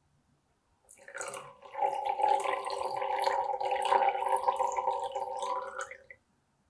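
Coffee poured in a thin stream from a small glass pitcher into a glass tumbler, a steady splashing trickle with a ringing tone. It starts about a second in and stops about six seconds in.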